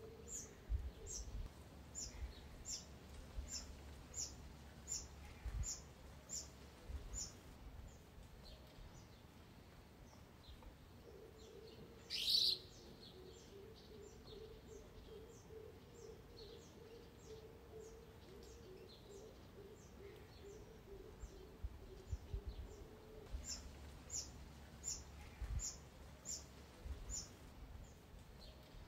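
Bird calls: short, high, thin notes repeated about two a second, breaking off for a long stretch in the middle. About twelve seconds in comes one louder, longer call: the begging of a juvenile Diederik cuckoo, gaping to be fed by a wagtail.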